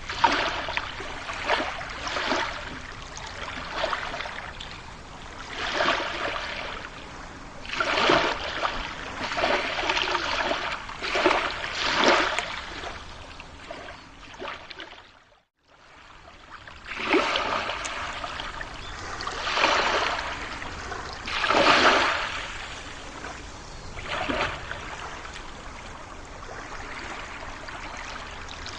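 Running water, swelling and easing every second or two. It drops out briefly about halfway through.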